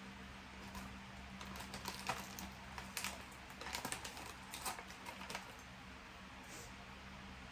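Light, irregular crunching of puffed shrimp chips being chewed, a few seconds of small crisp crunches that die away near the end.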